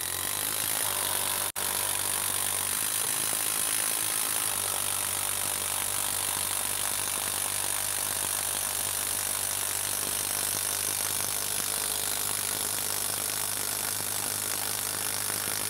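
Bosch 12-volt impact driver hammering steadily as it drives a long TimberLOK structural screw into a wooden stump, with one brief break in the trigger about a second and a half in.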